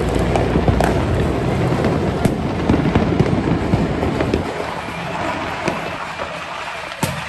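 Fireworks and firecrackers going off all around in a dense, steady crackle with many sharp pops. A heavy low rumble eases about four seconds in, and one sharp bang comes near the end.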